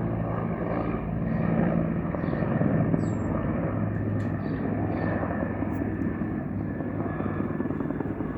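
Propeller aircraft engines droning overhead, swelling slightly in the first few seconds, with small birds chirping faintly.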